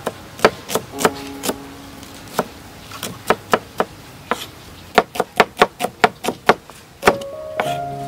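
Chef's knife chopping shallots on a thick wooden chopping board: sharp knocks, scattered at first, then a quick run of about five a second in the middle. Background music comes up near the end.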